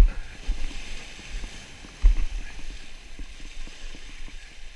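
Wind buffeting the microphone in low gusts, strongest at the start and again about two seconds in, over the steady wash of surf breaking on jetty rocks.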